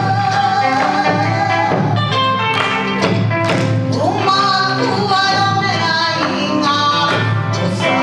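Kawachi ondo: a woman singing the narrative ondo melody through a microphone, with long held and sliding notes, over steady taiko drum beats and instrumental accompaniment.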